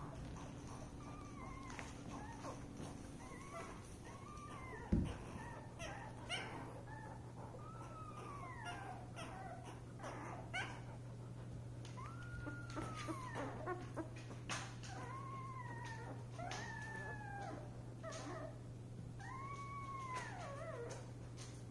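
Nine-day-old puppies squeaking and whimpering in many short, high, arching calls that often overlap. A steady low hum runs underneath, and there is a single thump about five seconds in.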